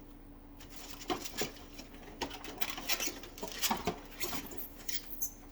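Plastic parts of an aquarium gravel cleaner kit being handled: irregular light clicks, taps and rustles, starting about a second in, over a faint steady hum.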